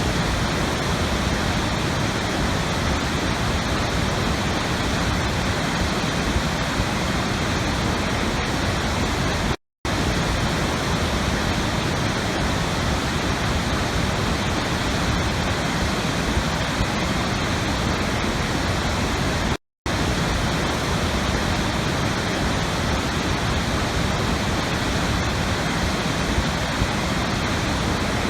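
Steady, even rushing of falling water, like a waterfall. It cuts out completely for a split second twice, about ten seconds apart.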